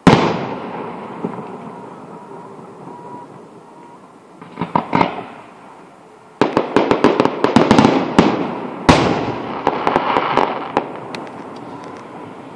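Fireworks going off: a loud bang right at the start that rolls away slowly, a few sharp pops about five seconds in, then a fast string of crackling reports and a second big bang near the nine-second mark, followed by scattered crackle.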